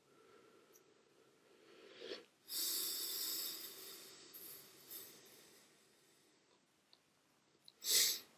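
A person breathing close to the microphone: a long hissy exhale about two and a half seconds in, and a short sharp breath near the end.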